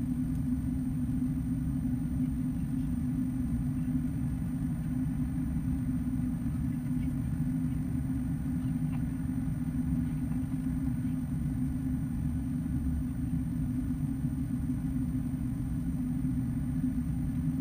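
Steady low drone of engine and airflow noise inside the passenger cabin of an Airbus A330-200 climbing after takeoff, even in level throughout.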